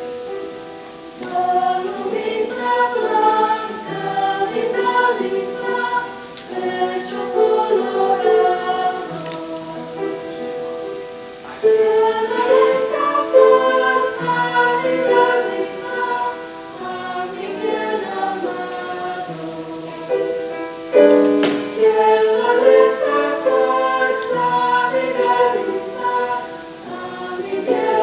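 Small high-school choir singing in harmony, in long phrases, with strong new entries about 12 and 21 seconds in.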